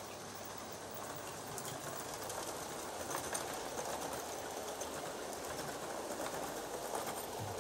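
Gauge 1 live-steam model train, an Aster rebuilt Merchant Navy and its coaches, running past on garden track: a steady noise of wheels on rail with light clicks, growing louder over the first few seconds.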